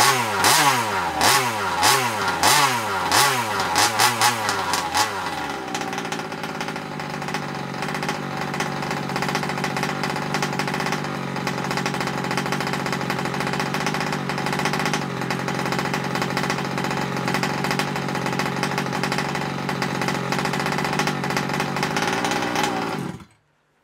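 Rovan Q-Shorty RC buggy's two-stroke petrol engine revving up and down in about seven quick blips, then ticking over steadily at a low idle. It cuts off suddenly near the end.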